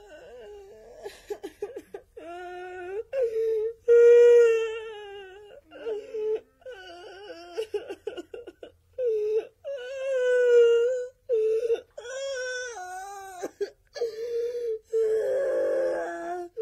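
Cartoon children wailing and sobbing: high-pitched, drawn-out cries that break off and start again many times, with two voices overlapping near the end.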